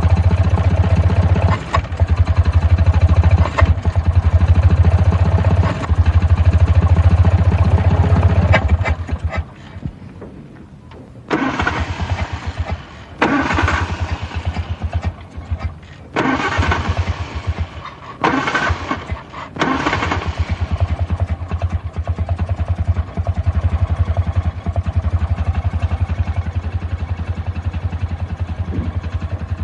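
A 1940s car engine being started: it runs loudly with a fast even beat, drops away about nine seconds in, then comes several short bursts of cranking, and it settles into a steady, quieter, even run for the last third.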